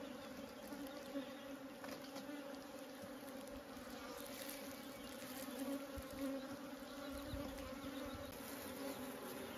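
Honeybees buzzing steadily around a slab of old honeycomb taken from their hive during the honey harvest: a low, even hum with no break.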